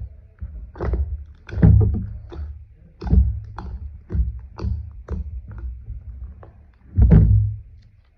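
Slime being squished and pressed by hand: irregular soft thuds with small sticky clicks, loudest about two seconds in and again near the end.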